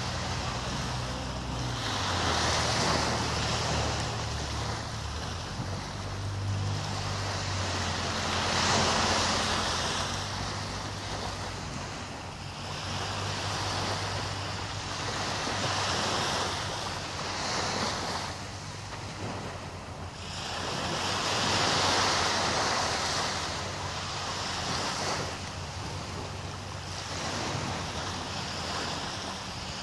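Small waves washing up on a sandy beach, the surf swelling and fading every few seconds, with some wind on the microphone.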